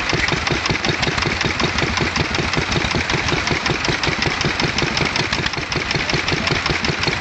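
Small vintage stationary engine running steadily, its exhaust giving a rapid, even beat with no change in speed.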